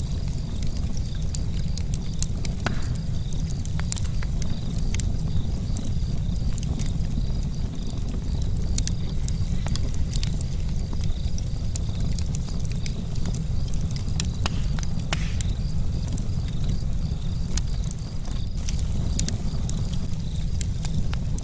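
Charcoal campfire crackling, with irregular sharp pops and ticks over a steady low rumble. A faint, evenly pulsing high buzz runs underneath.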